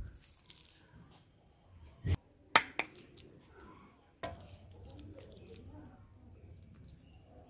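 Metal serving spoon knocking and clinking a few times against the pot and plate as carrot halwa is dished out. From about four seconds in, a low steady rumble runs beneath it.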